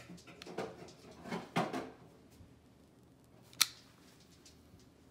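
A long utility lighter being handled while lighting a candle: soft clicks and rustles, then one sharp click about three and a half seconds in.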